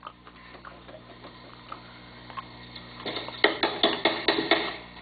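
Hard objects being handled: a few faint ticks, then a quick run of sharp clicks and knocks starting about three seconds in.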